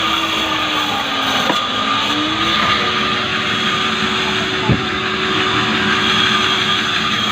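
Sawmill saw blade cutting through hard acacia wood: a loud, steady machine noise. Its tone sags in pitch and recovers about a second and a half in, and a single sharp knock comes about two-thirds of the way through.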